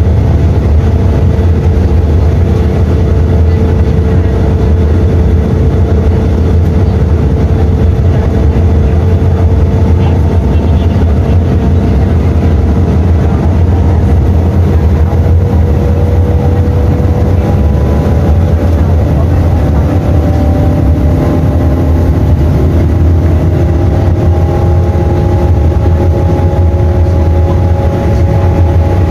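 Mercedes-Benz O-500U bus's OM 926 LA inline six-cylinder diesel engine running under way, a heavy low rumble with a whine whose pitch climbs slowly, rising more in the second half as the bus gathers speed.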